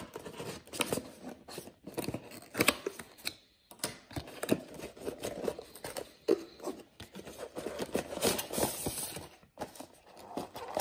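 Unboxing handling noise: the plastic seal on a cardboard box being cut and torn away, then the cardboard flaps opened and a paper insert slid out, an uneven run of crinkling, tearing, scraping and small knocks.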